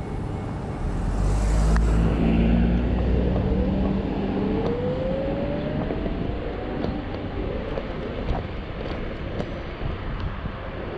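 Zero 9 electric scooter's 600 W motor whining and rising in pitch as it picks up speed, over wind and road noise. A deeper steady vehicle hum is loudest during the first few seconds.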